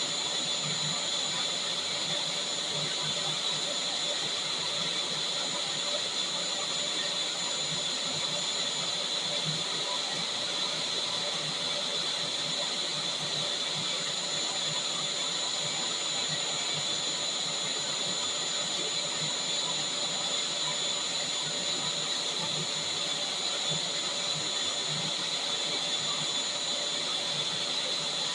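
Vacuum cleaner motor running steadily: a constant rush of air with a high, even whine over it.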